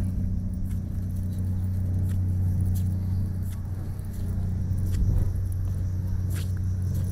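Ferry's machinery running, a steady low drone, with a few short high clicks.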